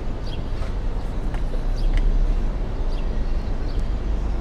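City street ambience: a steady low rumble of traffic, with a few faint, short high chirps.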